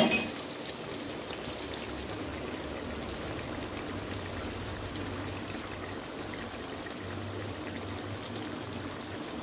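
Steady hiss from the pan of chicken gravy steaming on the stove, with a low hum underneath and a sharp knock right at the start.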